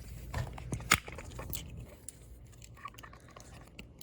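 Scattered clicks and knocks from hands working on a golf cart's brake switch and its mounting bracket, with one sharp click about a second in.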